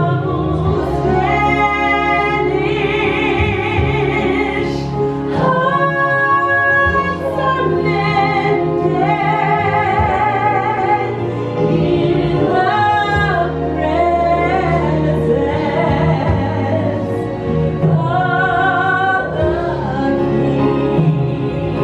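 A woman sings a worship song solo into a handheld microphone over instrumental accompaniment, with vibrato on her held notes.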